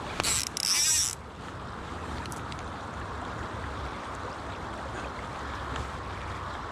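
River water running steadily past the wader, with wind on the microphone. About a quarter of a second in, a loud high hissing rasp lasts just under a second, briefly breaking off in the middle.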